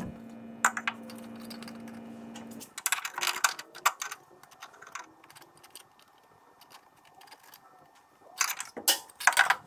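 Light metallic clicks and clinks of stainless exhaust tubing pieces being handled and pushed into place under a car, in two bursts about three seconds in and again near the end. A steady hum runs under the first two and a half seconds, then stops.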